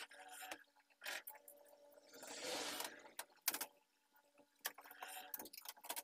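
Faint handling noise from work on an opened LCD TV: light clicks and knocks of a screwdriver and metal parts on the chassis, with a brief rustle about two seconds in over a low steady hum.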